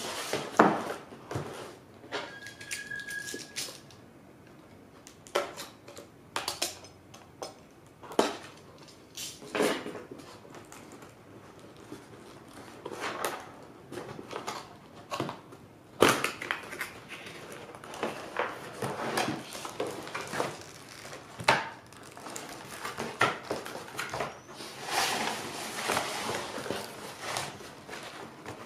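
Cardboard retail box being handled: irregular taps, knocks and scrapes as it is turned over and pressed on, then a longer rubbing slide near the end as the inner box is pulled out of its outer sleeve.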